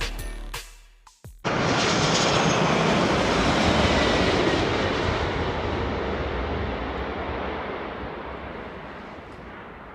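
Jet engine noise of an Airbus A330 passing close by, coming in suddenly at full strength about a second in and slowly fading as the aircraft moves away. It is preceded by the last of a music intro.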